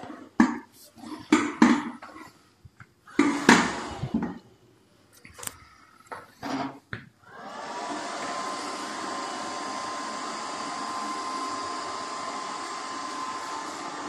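Haier SWR Pathfinder robot vacuum's suction motor spinning up about halfway through, then running steadily: a whine that rises and settles over a rushing hiss. Before it come several short, separate bursts of sound with near-quiet gaps.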